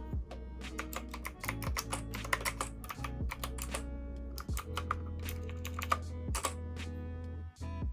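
Typing on a Knewkey Chic mechanical keyboard: runs of clacking keystrokes with short pauses between them, over lofi background music.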